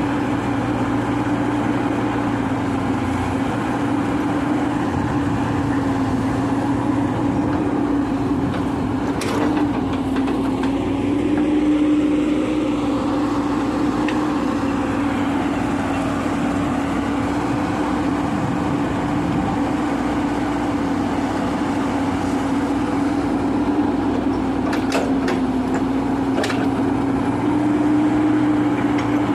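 Diesel engine of an earthmoving machine running steadily, its pitch wavering slightly, with a few sharp knocks a third of the way in and twice more near the end.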